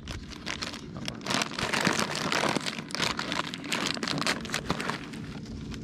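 Dense, irregular crackling and rustling that eases off near the end.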